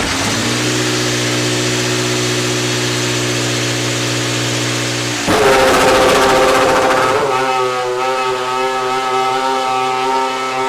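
The 2.4-litre V8 of a BMW Sauber F1.06 Formula One car running at a steady note. About five seconds in it turns suddenly louder and rougher, then settles into another steady note with stronger higher tones.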